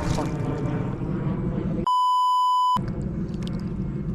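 Censor bleep: a steady beep tone lasting just under a second, starting about two seconds in, with all other sound cut out beneath it. Around it, a dense low outdoor rumble.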